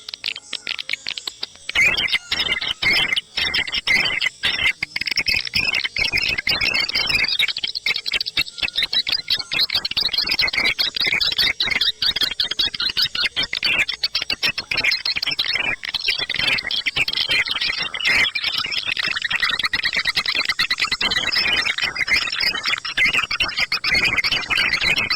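Swiftlet lure sound call: a recording of many edible-nest swiftlets chirping and twittering in a dense, rapid, unbroken chatter, of the kind played to draw swiftlets into a bird-nest house. The chatter comes in loudly about two seconds in after a brief lull.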